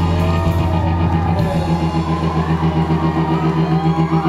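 Rock band playing live through a loud PA in a large hall: a held low note under a chord that pulses about five times a second, with sliding notes over the top.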